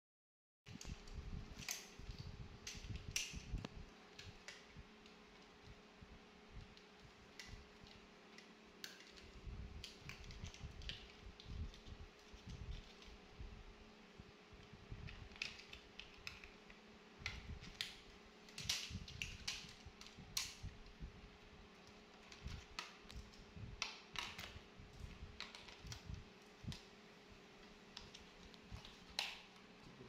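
Irregular light clicks and knocks of hard plastic being handled: a toy remote-control stunt car, its batteries and battery holder being fitted and put together.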